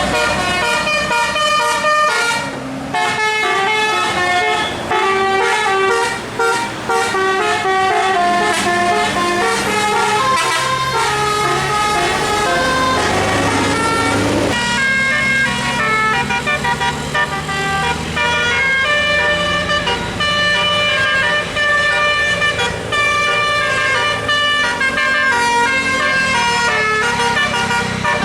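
Bus telolet horn, a multi-tone electric horn, playing a continuous tune of stepping notes.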